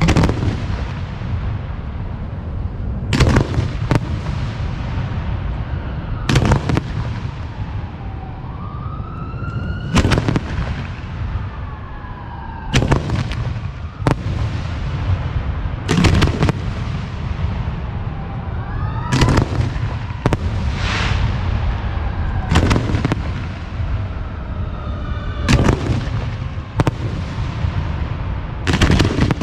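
Aerial firework shells bursting one after another, a sharp boom every few seconds and sometimes two in quick succession, over a steady low rumble. A siren wails up and down faintly in the background.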